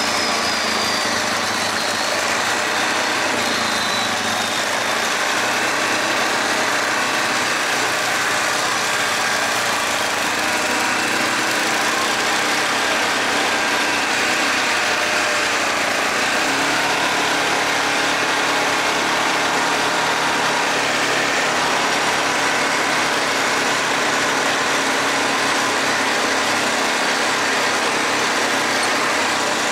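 Yamaha Grizzly 450 ATV's single-cylinder four-stroke engine running steadily, its pitch drifting only a little.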